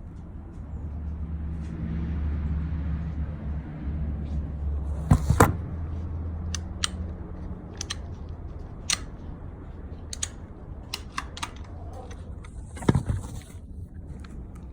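Sharp metallic clicks and clacks of a handgun being handled, with two loud clicks about five seconds in, scattered single clicks after, and a loud cluster near the end. A steady low hum runs underneath for the first few seconds.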